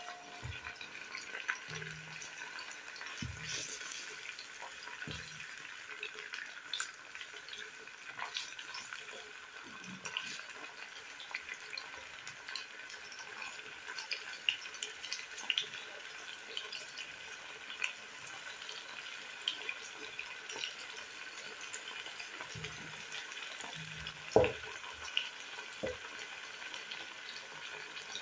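Chicken thigh pieces frying in oil in a granite-coated pot, browning: a soft steady sizzle with scattered small pops. A wooden spoon stirs the pieces and now and then knocks against the pot.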